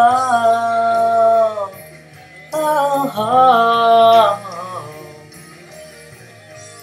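A solo voice singing long wordless held notes in two phrases, the second ending about four seconds in, over a quiet steady low backing drone that carries on after the voice stops.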